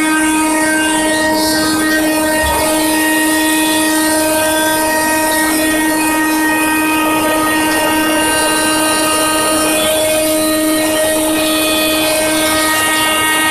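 Zepter water-filtration vacuum cleaner running steadily: a loud, constant motor whine over an even hiss of rushing air.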